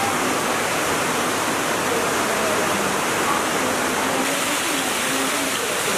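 Running water cascading over rocks, a steady rushing hiss.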